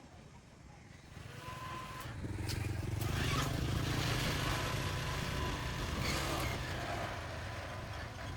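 A motor vehicle engine running: a low rumble that swells from about a second in, holds for several seconds, then slowly fades, with a few brief clicks over it.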